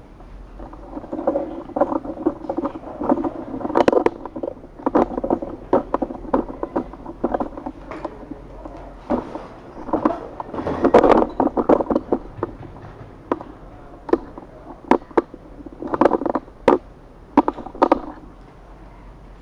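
Handling noise from a handheld camera: fingers rubbing, gripping and tapping the body near its built-in microphone, giving irregular clicks and knocks in clusters, busiest in the first few seconds, around the middle and near the end.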